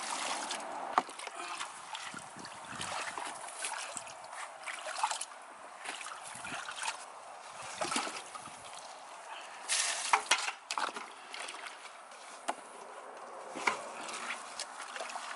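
Muddy water being bailed from a dug hole with a plastic tub and tipped into a bucket: sloshing and trickling, with occasional knocks and scrapes of the plastic.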